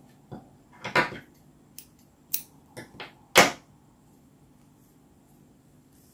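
A few short rustles and light taps from handling the crochet work and hook, with the loudest about a second in and about three and a half seconds in, then quiet.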